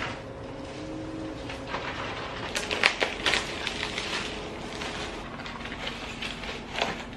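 Plastic bubble wrap and packaging crinkling and crackling in the hands as a parcel is unwrapped, in irregular bursts that are densest about three seconds in.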